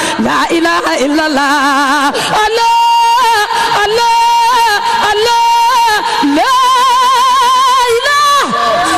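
A woman singing long, held melismatic notes with a strong vibrato, with falling slides between phrases, in the style of Senegalese Sufi devotional chant.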